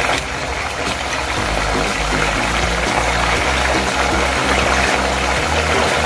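Chicken wings deep-frying in hot oil, a steady, continuous sizzle of bubbling oil.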